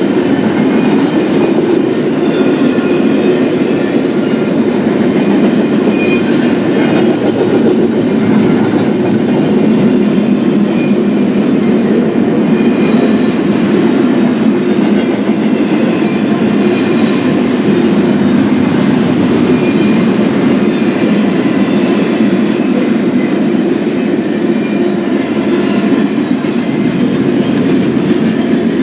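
Double-stack intermodal well cars rolling steadily past at trackside: a continuous rumble of steel wheels on rail with a clattering rhythm, and faint high wheel ringing now and then.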